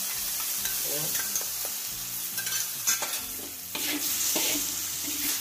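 Metal spatula stirring and scraping diced potatoes, ground beef and green beans around a wok, with short scrapes every half second or so over a steady sizzle of frying. A splash of water has just gone into the hot pan.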